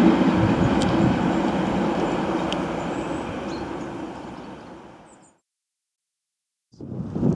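Diesel locomotives of a Class 37 and Class 47 hauled test train running through, a steady engine drone fading away as the train leaves and dying out about five seconds in. Wind rumbling on the microphone starts near the end.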